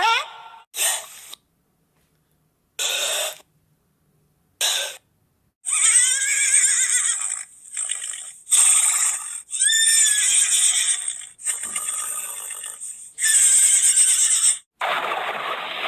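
Horse neighing: a few short separate calls, then from about five seconds in a run of long, loud whinnies with wavering pitch.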